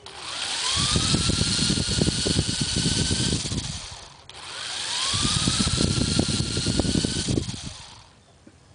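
RC model helicopter's motor spooling up twice, each time with a whine rising in pitch over the first second and a rattling clatter from the drive and rotor head. Each run lasts about three and a half seconds before it fades down.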